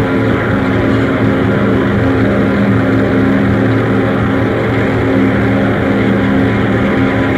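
A dense, steady drone from a cassette album of music: several low held tones layered under a hiss of noise, running on without a beat.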